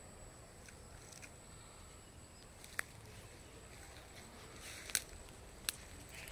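Three sharp clicks or snaps, the last two close together, over a faint steady background with a thin high-pitched whine.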